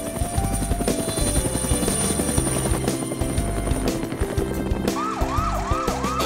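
Upbeat cartoon background music. About five seconds in, a siren starts wailing quickly up and down.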